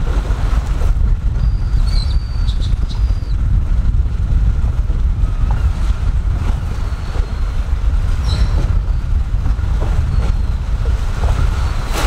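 Wind buffeting the microphone in a steady low rumble, with choppy salt water around a wading angler. At the very end a cast net slaps down onto the water with a splash.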